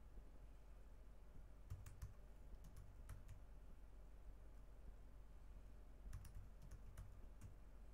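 Faint computer keyboard keystrokes as a password is typed, in two short bursts about two seconds in and again about six seconds in, over a low steady hum.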